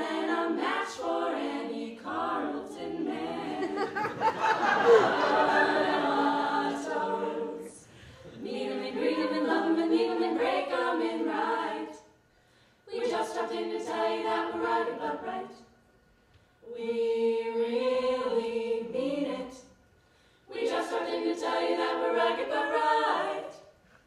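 Women's a cappella group singing unaccompanied in five phrases with short breaks between them.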